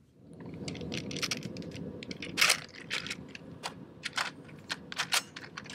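Handling noise as a heavy machine gun is picked up and moved: rustling that fades after a few seconds, with a scattering of sharp metallic clicks and knocks, the loudest about two and a half seconds in. No shots are fired.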